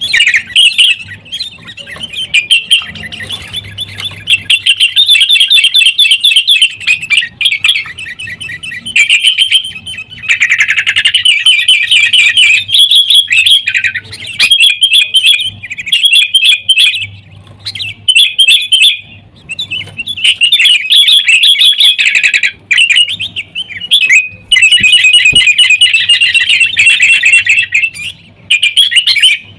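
Sooty-headed bulbuls (kutilang) giving rapid, noisy fighting calls in long chattering runs broken by short pauses.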